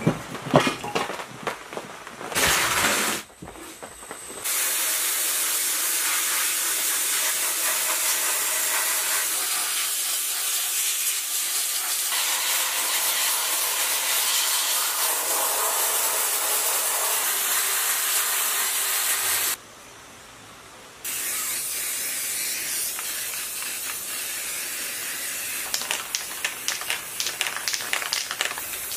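A few metal clinks as cast-iron engine parts are handled, then a sandblaster running: a loud, steady hiss of air-driven abrasive blasting the engine casing for about fifteen seconds. After a short break, a quieter steady hiss with rapid clicks near the end, as parts are spray-painted.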